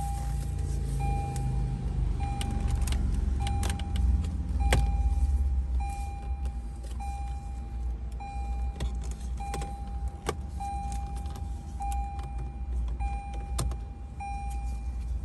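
A Lexus RX's warning chime beeps steadily about once a second. Plastic dash trim is pried off over it with several sharp clicks and snaps of its clips. A low steady rumble runs underneath.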